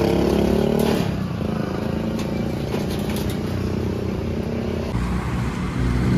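A motor vehicle engine running, its pitch rising during the first second and then settling into a steady low rumble. A few light knocks sound over it.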